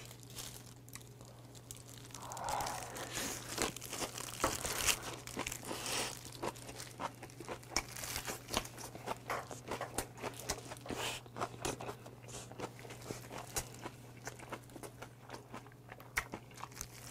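Close-miked chewing of a crunchy wrap of salted napa cabbage, boiled pork and raw oysters: a dense run of wet crunches and clicks, mixed with the crinkle of thin plastic gloves. A steady low hum runs underneath.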